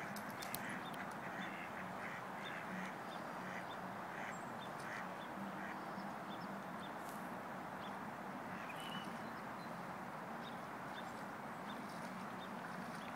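A flock of ducks quacking on and off over a steady background hiss.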